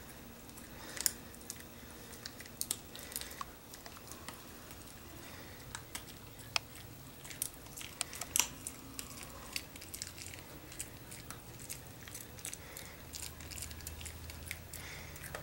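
Small long-haired dog chewing a dried duck-tender treat: irregular crunches and sharp clicks of teeth, faint and close.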